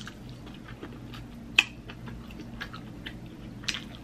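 Close-miked eating sounds: chewing with many small wet mouth clicks, a sharper smack about one and a half seconds in and another near the end.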